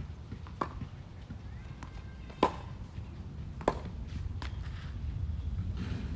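Tennis ball struck by rackets and bouncing on a hard court during a rally: four sharp pops, the loudest about two and a half seconds in, over a steady low rumble.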